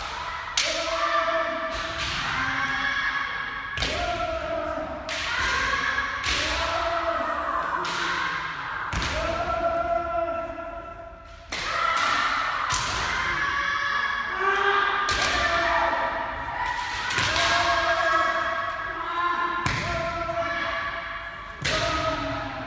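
Kendo sparring: drawn-out kiai shouts, mixed with repeated sharp impacts from bamboo shinai strikes and stamping footwork on the gym floor, each impact trailing off in the hall's echo.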